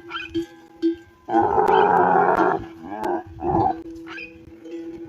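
Camel calling with a rough, roaring grumble: one long call about a second in, then two short ones.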